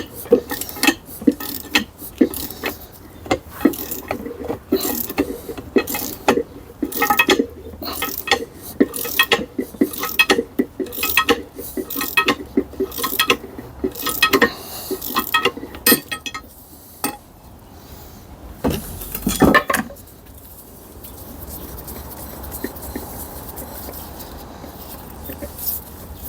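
Metal gearbox parts being handled on a bench: a run of clinks, taps and knocks, a louder clatter about nineteen seconds in, then a steady faint noise.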